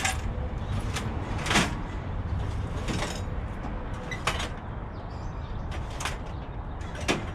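Intermittent sharp knocks and clicks, about six spread across a few seconds, from tools and bike parts being handled during a bicycle teardown, over a steady low hum.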